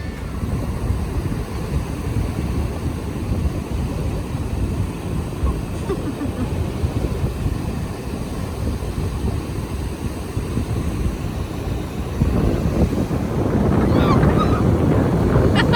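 Gulf of Mexico surf washing on the beach, with wind buffeting the microphone; the rush grows louder about twelve seconds in.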